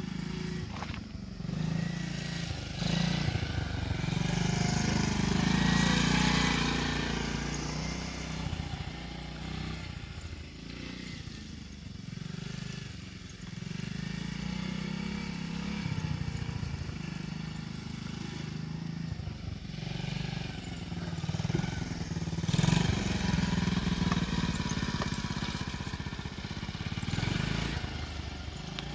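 50 cc pit bike engine running as it is ridden around, its pitch rising and falling with the throttle. It grows louder twice as the bike comes close, about five seconds in and again past twenty seconds, and fades as it moves away.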